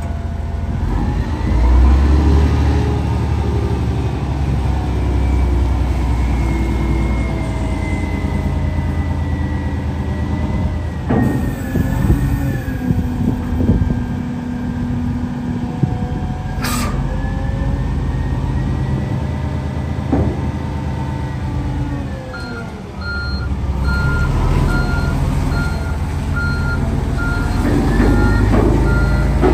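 Komatsu HM400-2 articulated dump truck's diesel engine revving to drive the hydraulic hoist as the dump body is raised and lowered, with a whining pitch that slides up and down. A sharp clack comes about 17 seconds in, and a steady pulsed beeping alarm starts about two-thirds of the way through.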